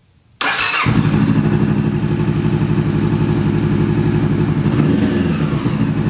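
Honda motorcycle engine started on the electric starter: a brief crank, then it catches just under a second in and settles into a steady idle. It starts from the start button on the freshly rewired right-hand handlebar switch.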